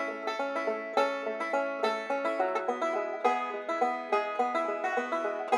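Intro music: an instrumental tune on a plucked string instrument, picked in a quick run of short, sharply struck notes.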